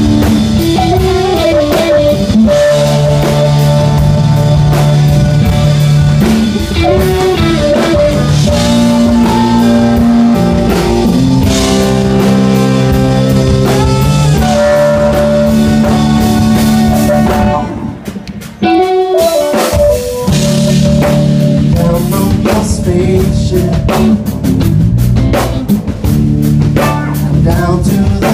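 Live blues band playing, a horn section of trumpet, saxophones and trombone holding long notes over electric guitar and drum kit. The band stops short just past the middle for about a second and a half, then comes back in.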